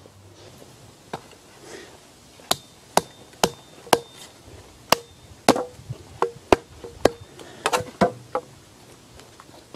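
An axe chopping at a plum-wood stump: about a dozen sharp strikes from about a second in, roughly half a second apart, some followed by a short ringing tone.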